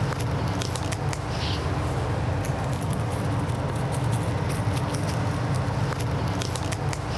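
Plastic cling film crinkling and crackling in quick irregular clicks as it is unrolled, wrapped and pressed by gloved hands over a wet-painted guitar body, over a steady low hum.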